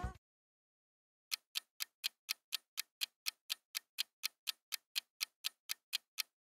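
Clock ticking sound effect, evenly paced at about four ticks a second, starting a little over a second in after a brief silence. The tail of a music clip cuts off at the very start.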